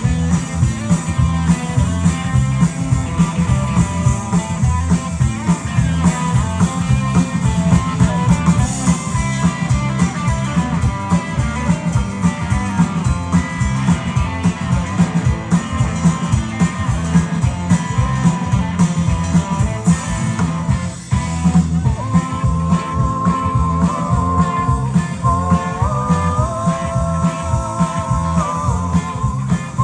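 Live rock band playing: drums keeping a steady beat under bass and electric guitar. About two-thirds of the way through there is a short drop, and then a lead line of long held notes comes in over the band.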